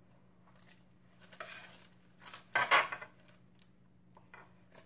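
Wooden spoon scraping and spreading thick cake batter in a parchment-lined baking pan: two short scrapes about a second and a half and two and a half seconds in, the second the louder, then a few light taps near the end.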